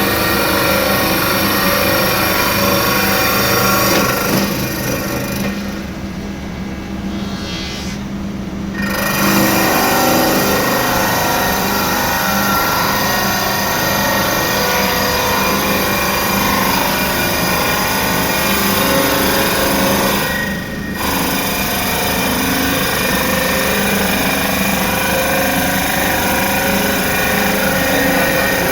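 CNC turning lathe running and cutting: a dense, steady machining noise with many sustained tones. The high end drops away for a few seconds about five seconds in, and again briefly past twenty seconds.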